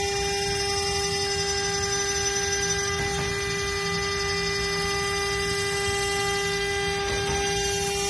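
CNC spindle running at a steady whine while its end mill grinds down a BGA chip on a laptop motherboard, with a hiss of cutting under the tone.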